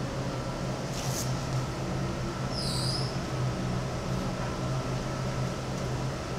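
Steady low hum over even background hiss, with a faint click about a second in and a short high chirp, like a small bird's, about two and a half seconds in.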